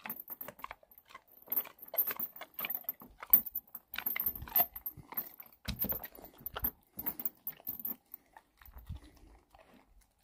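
A dog's metal chain leash and collar clinking in many short, irregular clicks as it moves, mixed with the dog licking snow and chewing a pork trotter bone. The clicks thin out near the end.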